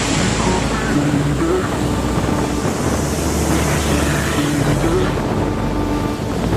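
Wind rushing over the microphone of a moving motorbike, a loud, steady rush, with a pop song's instrumental backing playing underneath in short stepped notes.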